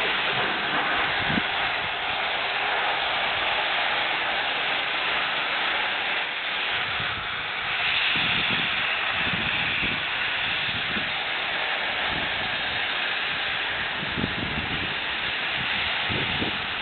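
BR Britannia class 7MT steam locomotive hissing steam, a steady loud hiss that turns brighter and sharper about eight seconds in, with dull low thuds now and then in the second half.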